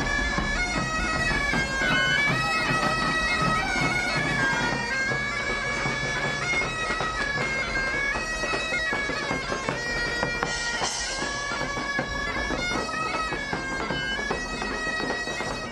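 A bagpipe playing a melody that steps up and down, with a large rope-tensioned drum beating along underneath.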